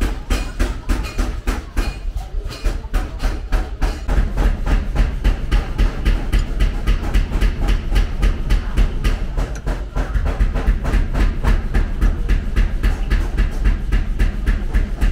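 Forging hammer striking steel in a fast, even rhythm, about three to four blows a second, over a steady low rumble.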